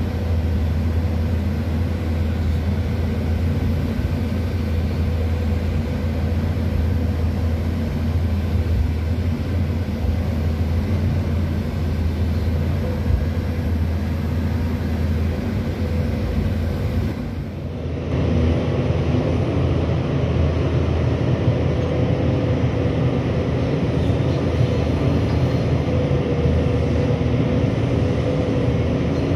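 A Pindad hydraulic excavator's diesel engine running steadily with a deep low hum as it digs, heard from inside the cab. About two-thirds of the way through, the sound cuts to the same machine working, heard from outside.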